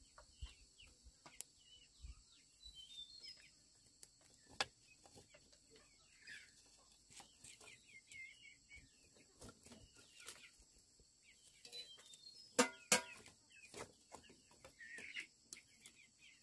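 Chickens clucking, with faint high chirps, scattered light clicks, and two louder sharp sounds in quick succession about three-quarters of the way through.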